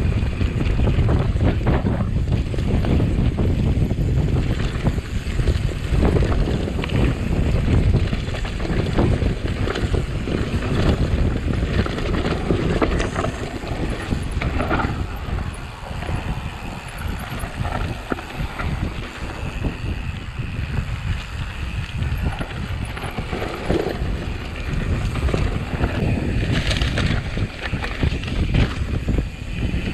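Wind buffeting the microphone of a camera carried on a moving mountain bike, a steady low rumble with frequent small knocks and rattles from the bike over rough ground.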